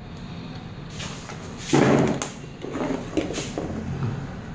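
Handling noise from wiring work: a screwdriver and a wire end scraping and knocking against a timer relay socket's terminal on the mounting board. The loudest knock comes about two seconds in, with lighter ones after it.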